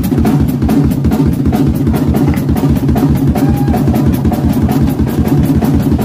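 A rock drum solo played live on a full drum kit. The kick drum keeps up a fast, even run of beats under steady cymbal and snare strokes, with no break.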